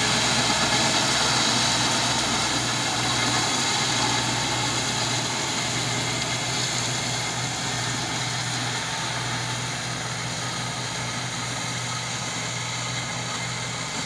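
Landini Powerfarm 90 tractor's diesel engine running steadily under load as it drives a Dalla Fiora mower-conditioner cutting ryegrass, a steady machine drone with a high whir from the spinning mower. It fades slowly as the tractor moves away.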